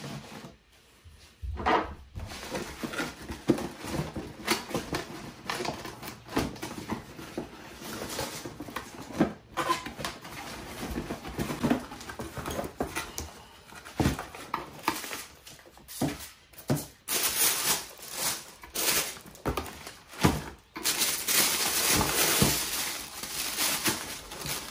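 A cardboard shoebox being unpacked by hand: a knife cutting the packing tape, then the box and lid scraping, tapping and knocking as they are handled. Tissue paper rustles and crinkles through the last several seconds.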